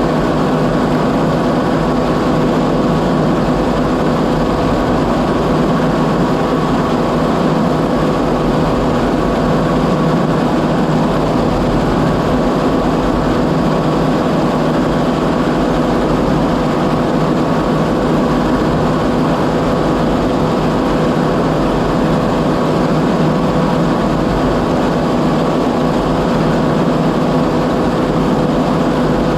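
Oliver 7300 combine running steadily under a working load, a constant engine drone with a steady whine over it.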